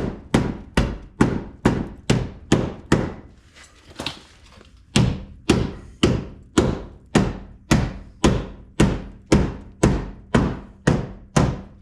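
A hammer strikes the sheet-metal fender lip of a Jeep XJ wheel opening again and again, folding the cut edge over. The blows come steadily, about two and a half a second, each with a short metallic ring, and pause briefly about three seconds in before the strikes resume.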